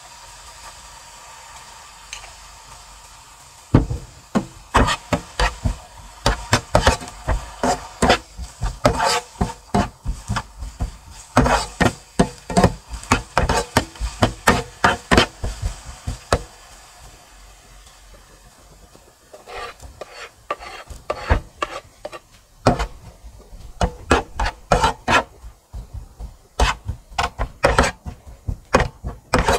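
Quick runs of sharp knocks and scrapes from a kitchen utensil worked against a board or pan, starting a few seconds in and stopping briefly about halfway before going on again.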